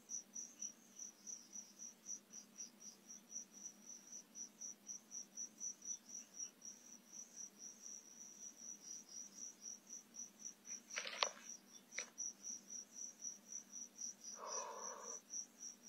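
Cricket chirping steadily at night, a high-pitched pulse about three times a second, with a couple of brief soft noises: one about eleven seconds in and another near the end.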